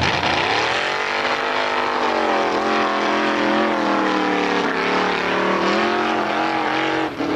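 Formula Offroad buggy's engine held at high revs as it climbs a steep sand hill. The pitch drops over the first second, then stays high with small rises and dips, and cuts off just before the end.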